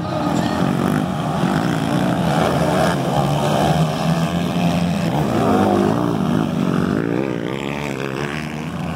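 Several motocross bikes' engines revving up and down, their overlapping pitches rising and falling as the riders open and close the throttle.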